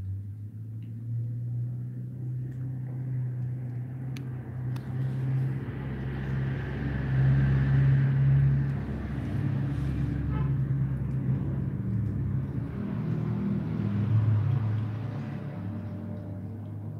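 Domestic cat growling: a long, low, wavering growl that swells and fades, typical of a cat guarding its food from another cat.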